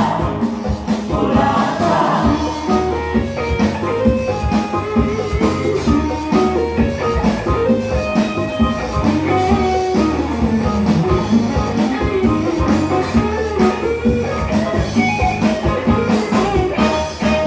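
Music with a steady beat and a melody, at an even level throughout.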